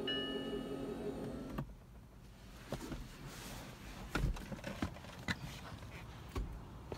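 A car's electric window motor whines steadily and cuts off about a second and a half in. Scattered clicks and knocks from handling the car follow.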